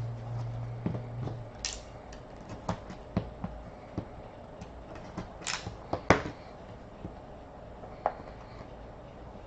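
Trading card box and packaging being opened and handled: scattered clicks and taps with a few quick rustling swipes, the strongest near two seconds in and around six seconds. A low steady hum cuts off about a second and a half in.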